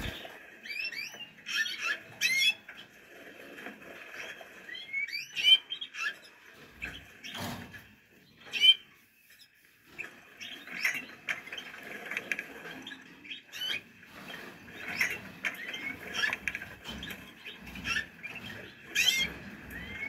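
Canaries calling with many short chirps that sweep up and down in pitch, mixed with scattered sharp clicks and taps.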